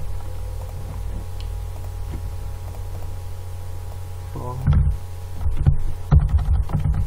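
Steady low electrical hum, like mains hum on the recording, with computer keyboard typing (a run of key clicks) starting about two-thirds of the way in.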